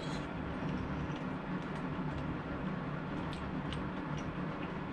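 Steady low background hum with a few faint, short clicks of a person eating from a spoon and chewing.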